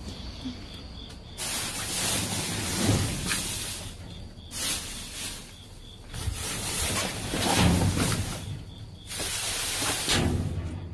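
Rustling and crinkling of plastic trash bags and cardboard being moved, in several spells of a few seconds each that start and stop abruptly. Faint insect chirping shows in the gaps.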